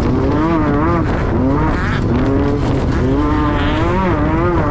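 Class 10 off-road race buggy's engine under hard driving, its pitch rising and falling again and again as the throttle is worked, over a steady rumble of noise.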